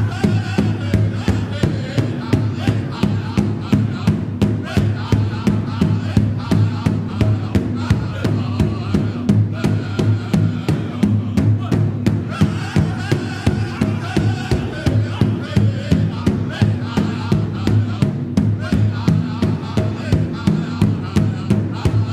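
Background music with a steady drumbeat over a sustained low tone, with a wavering melody above it.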